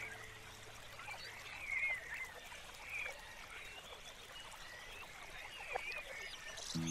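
Faint outdoor birds chirping now and then, short twittering calls over a light hiss. The tail of a low, steady music note fades out in the first second and a half.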